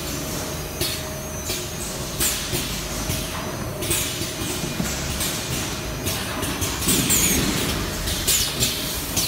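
Packaging-line conveyor running with a steady machine hum and a faint steady tone, broken by irregular sharp clacks and knocks from the plastic motor-oil jugs riding along its metal guide rails.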